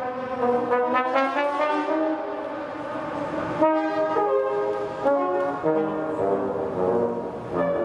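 Music of slow, sustained brass notes stepping from pitch to pitch, with two or three tones often sounding together.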